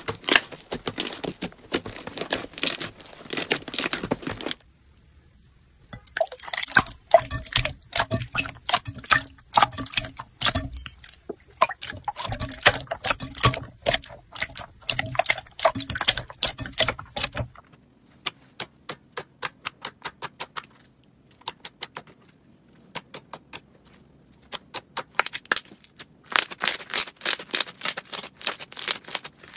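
Slime being squeezed, pressed and poked by hand, crackling and popping in fast runs of small clicks. There is a short break about five seconds in, sparser pops past the middle, and dense crackling again near the end.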